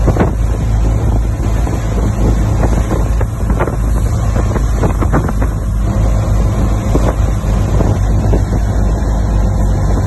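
Motorboat running under way, a steady low rumble with wind buffeting the microphone.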